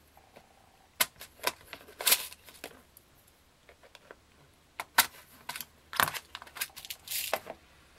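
Scattered light clicks and taps, about ten spread irregularly, from small craft supplies being handled: a plastic embellishment organizer and metal tweezers on a craft mat while a brad is picked out. A short rustle near the end.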